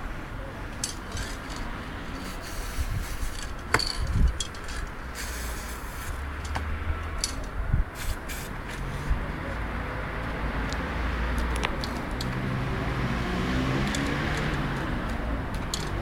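Aerosol spray-paint cans hissing as paint is sprayed, steadier and stronger in the second half, with scattered sharp metallic clicks and rattles of the cans being handled. A low rumble runs underneath.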